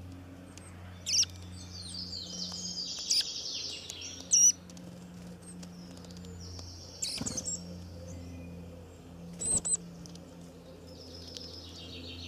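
Small birds chirping, with short high calls and quick trills coming on and off, the sharpest call about four seconds in, over a steady low hum.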